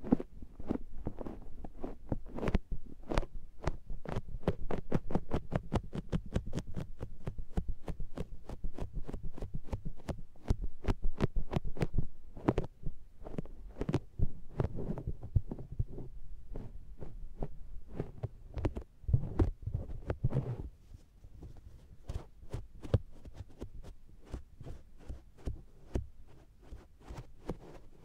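Makeup sponge pressed and patted against the silicone ear of an SR3D binaural microphone, giving soft, sticky, suction-like pats close in the ear, several a second. The patting thins out and gets quieter in the last third.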